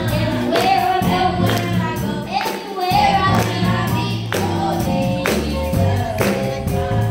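Young boy singing through a microphone, with girls singing backup, over amplified backing music with a steady beat.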